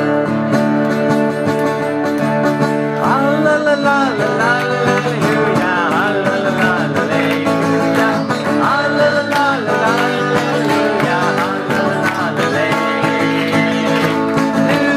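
Acoustic guitar playing a song, with singing coming in about three seconds in.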